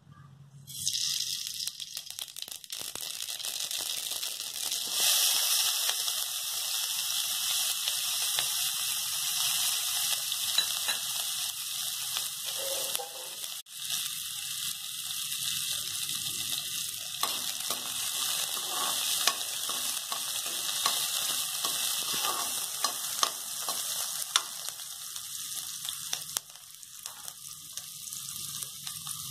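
Hot oil sizzling and crackling in a kadai, starting suddenly about a second in as mustard seeds go into the oil. Chopped onion then sizzles as it is stirred and sautéed, with a brief drop in the sizzle about halfway.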